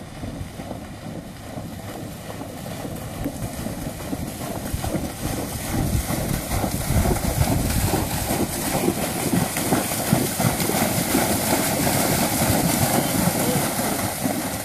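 Friesian horses' hooves splashing through shallow lake water, getting louder as the horses come close, over wind rumbling on the microphone.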